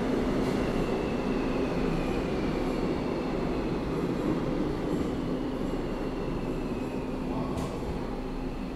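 New Woojin-built Seoul Line 8 electric subway train slowing as it pulls into the station: a steady low rumble with a motor whine falling slowly in pitch, and a brief high hiss near the end.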